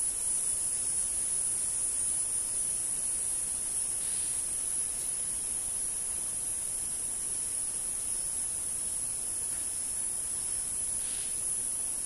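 A steady, high-pitched hiss that keeps an even level, with no distinct calls over it.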